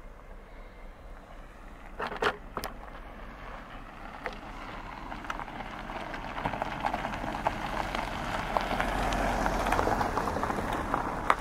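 Handling knocks as the camera on its tripod is picked up and moved, about two seconds in. Then a car drives up the gravel road and passes close by, its tyres crunching on the stones, loudest just before the end.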